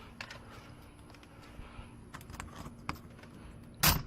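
Light clicks from a freshly picked door lock and its tools being worked, then a single loud clunk near the end.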